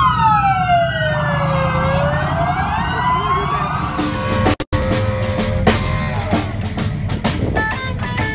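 Several American police car sirens wailing together, their tones sliding up and down and crossing. About four and a half seconds in, the sound drops out for a moment and cuts to a band playing with drums and an upright bass.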